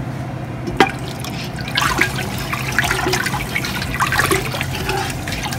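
Wooden spoon stirring broth in a stainless steel pot: liquid sloshing and swishing with many small clicks, starting about two seconds in. There is a single sharp knock just under a second in, over a steady low hum.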